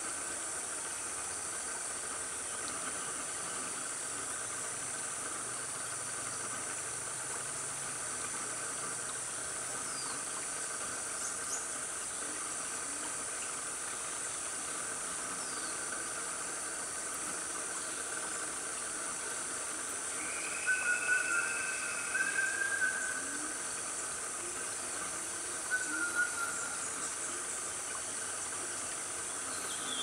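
Steady drone of rainforest insects (cicadas and crickets). A few brief animal calls rise above it about twenty seconds in and again a few seconds later.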